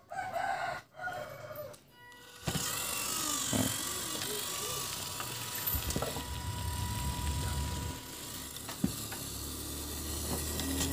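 Two small 12 V DC gearmotors (GA25Y370, 300 RPM) starting up about two and a half seconds in and then whirring steadily, after a few clicks of handling.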